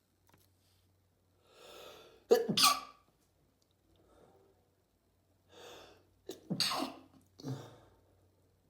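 A person sneezing twice in quick succession. Each sneeze comes after an audible drawn-in breath, and a shorter, weaker burst follows right after the second.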